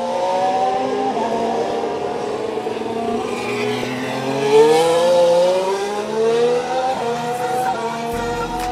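Racing car engines revving, several at once, their pitch rising and falling as they brake and accelerate, loudest about halfway through.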